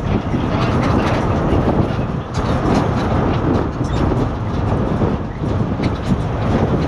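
Recovery vehicle driving, a steady loud rumble of engine and road noise with scattered rattles and clicks.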